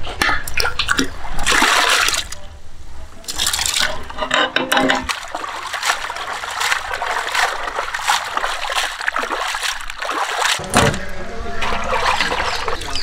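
Water splashing and sloshing in a vessel as cut pieces of sailfish are washed by hand, with irregular splashes and trickles.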